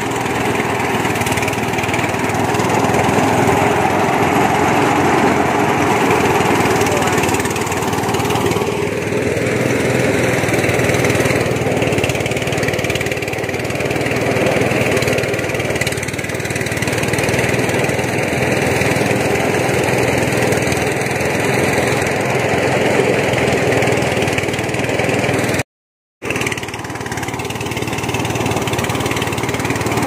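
Small engine running steadily at a constant speed, cut off for about half a second near the end.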